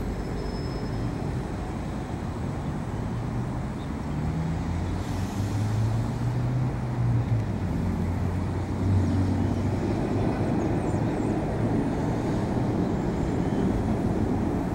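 Low, steady rumble of a distant jet airliner's engines, with a droning hum that grows louder about four seconds in.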